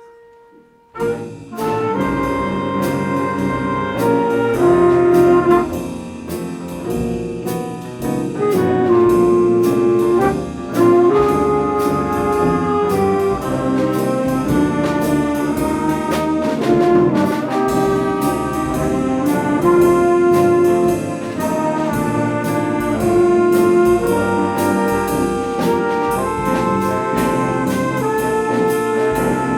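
High school big-band jazz ensemble playing a brass-led arrangement of Christmas tunes, with trumpets and trombones over a rhythm section. The band comes in sharply about a second in after a brief near-quiet moment.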